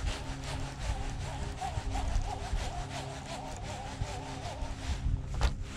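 Baitcasting reel being cranked to retrieve a cast lure, its gears giving a quick, even ticking rasp. A single sharp knock comes near the end.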